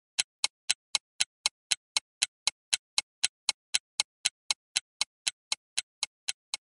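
Clock-style ticking sound effect of a countdown timer: sharp, evenly spaced ticks, about four a second, steady throughout.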